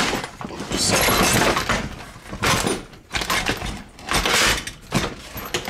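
Close-up handling noise from a string-trimmer engine being moved about by hand near the microphone: a series of rough scraping, rustling and clattering bursts.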